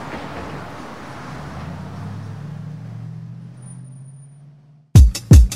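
Street traffic with a low vehicle engine hum that swells and then fades out about four and a half seconds in. Just before the end, music cuts in with loud, booming bass-drum beats.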